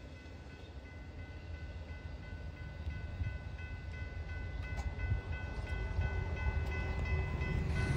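Railroad grade-crossing bell ringing in a fast, even series of dings, over the low rumble of an Amtrak Superliner passenger train pulling away.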